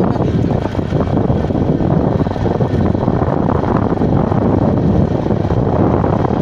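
Wind rushing over the microphone of a moving vehicle, mixed with road and engine noise: a loud, steady rush with most of its weight in the low end.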